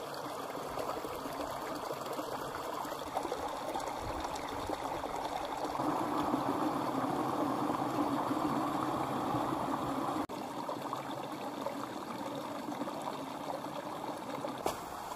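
Running water of a stream, a steady rushing that grows louder for a few seconds in the middle, with a sudden brief drop about ten seconds in.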